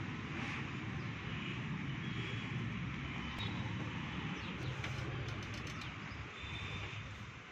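Outdoor city ambience: a steady low rumble of distant traffic with a few faint bird chirps, and some light clicks about five seconds in; the rumble falls off a little near the end.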